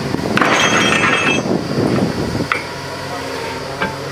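Borewell drilling rig running steadily, with a rattling burst of metallic clinks and clanks about half a second in and single sharp clinks later.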